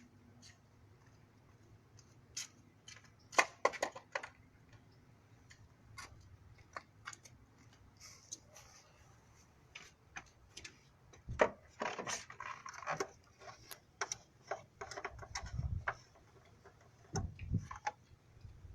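Scattered clicks, taps and knocks of objects being handled, with a few dull thuds in the second half.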